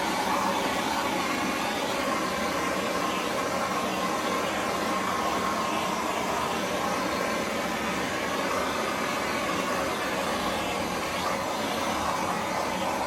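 Blowtorch flame running steadily with an even hiss, scorching the frayed fibres off the surface of chainsaw-carved wood.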